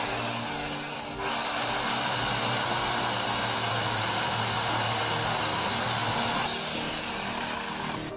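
Wood chipper shredding a small tree: a steady, harsh grinding noise with a high whine over it, dipping briefly about a second in and easing near the end.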